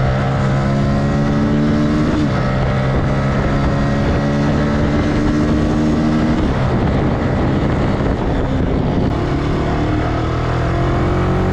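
A motorcycle engine running steadily under way, heard with wind rushing over the microphone; its note dips briefly about two seconds in and again about six and a half seconds in.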